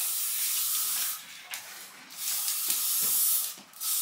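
Aerosol spray can sprayed in three long bursts of hiss, with a pause of about a second after the first and a brief break before the third.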